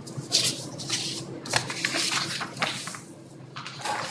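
Sheets of paper rustling and crackling as they are picked up and handled, in a busy run of short bursts over about two and a half seconds, with a smaller rustle near the end.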